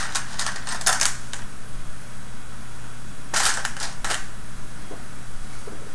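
Hard plastic Robotis OLLO kit pieces clicking and clattering as they are handled and set down, in two short clusters: one at the start and another about three seconds in. A faint steady low hum runs underneath.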